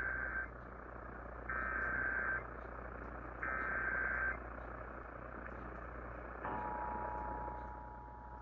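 Emergency Alert System required monthly test played through a small portable radio's speaker on AM: three one-second bursts of SAME digital header data about two seconds apart. About six and a half seconds in, the steady two-tone EAS attention signal begins, all over a constant hiss of AM static.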